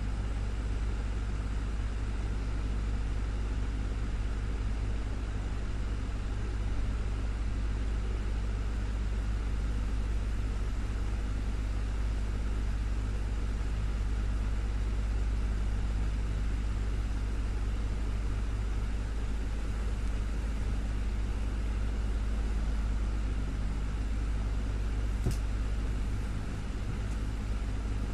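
Desktop fan running steadily: an even whir of moving air over a low motor hum, with one faint tick near the end.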